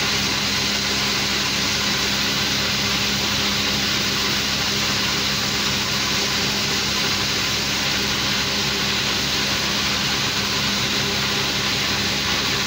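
Machinery running steadily: a constant mechanical hum with a faint high whine, no stitching rhythm.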